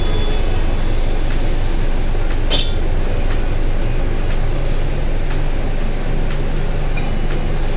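A steady low hum with one sharp metallic clink, with ringing, about two and a half seconds in, as steel gearbox parts knock together.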